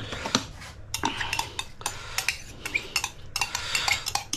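A small cup clinking and scraping against a stainless steel mixing bowl as spice paste is emptied out of it onto raw chicken and worked in by hand: a quick, irregular run of light clinks and taps.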